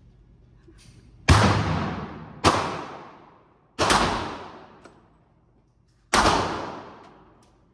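Four single gunshots, spaced unevenly about one to two seconds apart, each sharp crack trailing off over about a second.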